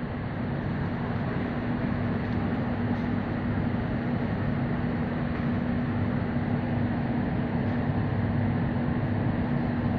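C751C metro train approaching unseen through the tunnel: a steady rumble with a low hum that slowly grows louder.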